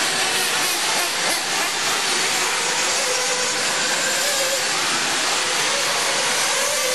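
Several 1/8-scale nitro buggies' glow engines running at once on the track, a steady high-pitched buzzing haze with faint wavering engine whines.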